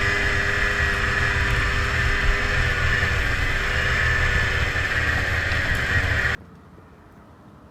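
Two-stroke snowmobile engine running at steady high revs while skimming across water, with wind on the microphone. It cuts off suddenly about six seconds in, leaving only a faint background.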